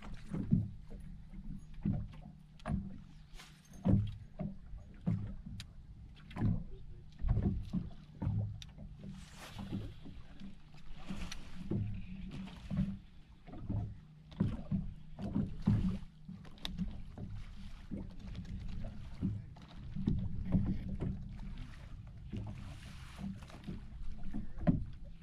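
Small waves lapping and slapping against a boat's hull in irregular knocks and splashes, over a low steady hum.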